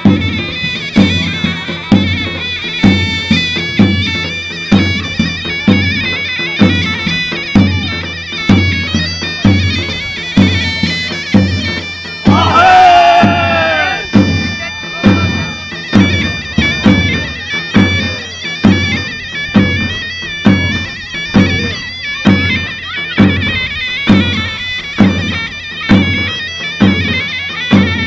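Turkish folk dance music: a shrill double-reed pipe, likely a zurna, plays a steady melody over a big drum, likely a davul, beating about once a second. About twelve and a half seconds in, a brief loud sound with a bending pitch rises over the music.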